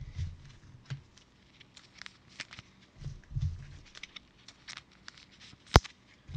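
Light handling noise from trading cards and packaging on a table: scattered soft taps and ticks, a couple of low bumps, and one sharp click near the end.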